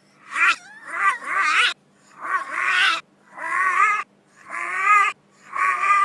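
Infant crying in a run of about six wailing cries, each under a second long, rising and falling in pitch, with short breaths between. A faint steady hum lies under them.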